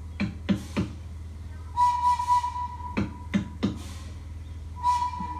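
Music: a flute holding a long steady note twice, over drum beats that fall in groups of three.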